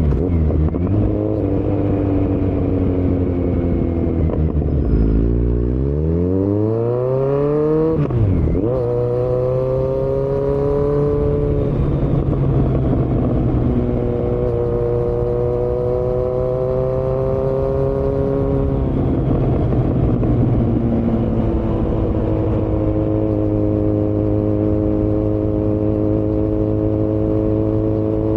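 2018 Kawasaki Z900's inline-four running through a Yoshimura muffler and Delkevic headers with no dB killer. Under hard acceleration the revs climb steeply from about five to eight seconds in, then drop sharply. The engine then holds fairly steady revs with a few brief dips.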